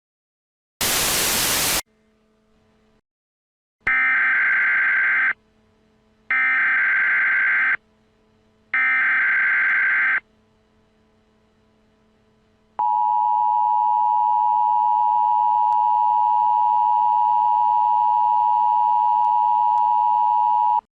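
Emergency Alert System tones: a second of loud static, then three screeching SAME digital header bursts about a second apart, then the two-tone EAS attention signal (853 and 960 Hz together) held steady for about eight seconds before it cuts off.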